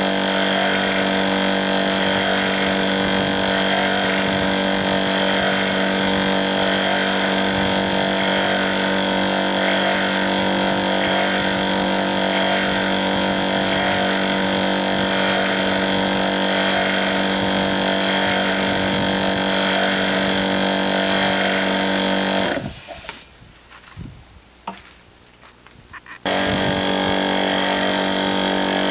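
Air compressor for a spray gun running steadily, a constant motor hum with a hiss over it. It drops out for about three seconds near the end, then comes back unchanged.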